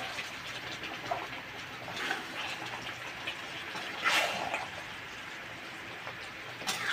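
A metal spatula stirring thick chicken curry gravy in a wok, with a few wet scraping strokes over a steady hiss; the loudest stroke comes about four seconds in.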